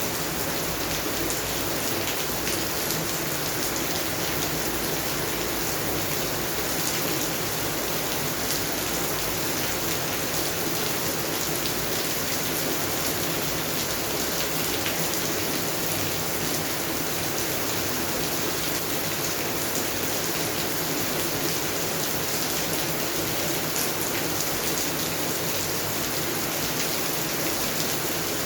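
Steady rain falling on a garden's plants and surfaces, a constant even hiss with many small drop patters.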